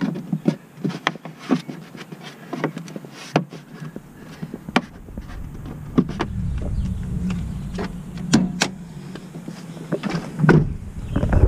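Plastic wheel-well fender liner of a 2019 Jeep Cherokee Trailhawk being pushed back into place: a run of sharp clicks and snaps. From about halfway a low rumble of camera handling and wind noise builds, with a few more loud clicks.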